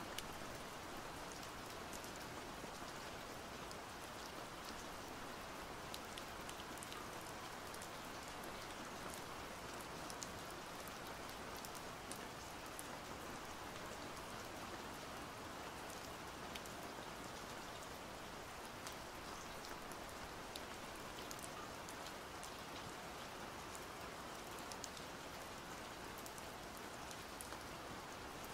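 Steady rain, an even hiss with scattered sharp drop ticks.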